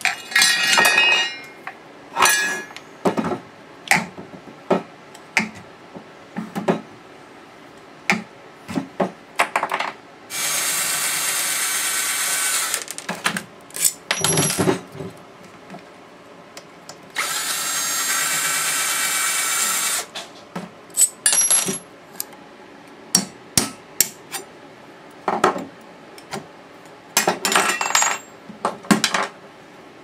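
Hand tools and metal parts clanking and knocking while a garage door opener is taken apart, with a power drill running twice, for about two and a half and three seconds, about a third and then about three fifths of the way through.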